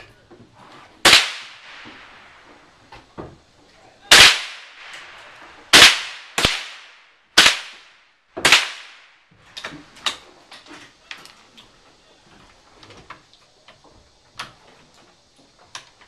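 Rifle shots fired one at a time along a firing line: six sharp reports in the first nine seconds, each with a short ringing tail, the middle ones coming close together. After that come fainter clicks and knocks.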